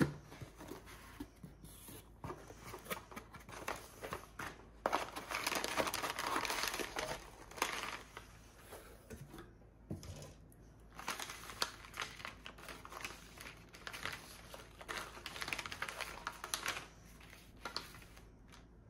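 Plastic packaging crinkling and being torn open by hand, in dense bursts of rustling with scattered crackles.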